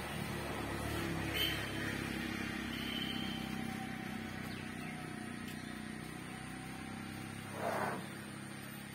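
A motor vehicle engine running steadily, a low hum that swells slightly about a second in and then eases off, with one short bark-like call near the end.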